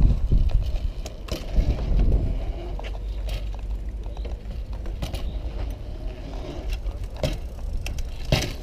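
BMX bike riding around a concrete skatepark bowl: the tyres roll on the concrete with a steady low rumble, broken by several sharp knocks of the bike hitting the concrete and coping.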